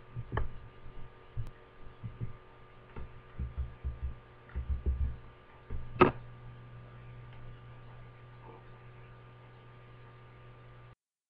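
Steady low electrical hum from a webcam recording, with scattered low thumps and one sharp click about six seconds in; the hum cuts off suddenly near the end.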